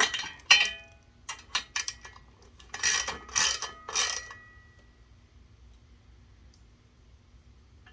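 Tools and bolt hardware clinking against the e-bike's metal fender mounts as the fender bolts are snugged up: a series of sharp metallic clinks and rattles, some ringing briefly, in the first four seconds.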